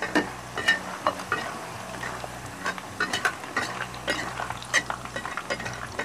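A metal spatula clinking and scraping irregularly against a wok as fried potatoes are stirred and lifted out, over faint sizzling oil.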